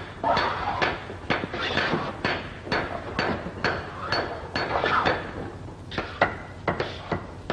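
Several shoemakers' hammers knocking on shoes, irregular strokes about two or three a second, some with a brief metallic ring.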